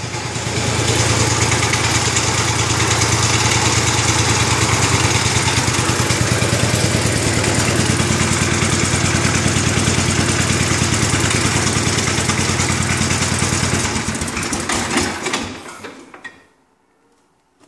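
The Kohler K321A 14 hp single-cylinder engine of a 1974 Cub Cadet 149 garden tractor running steadily with an even pulsing beat. About 14 seconds in it is shut off and winds down to a stop.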